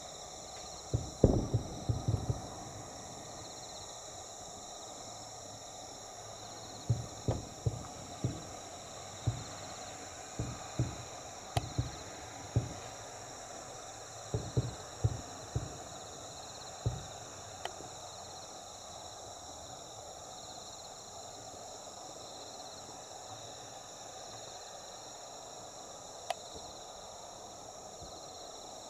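Distant aerial firework shells bursting: low, dull booms in quick clusters through the first half, then mostly quiet apart from one small pop near the end. A steady high chirring of insects runs underneath.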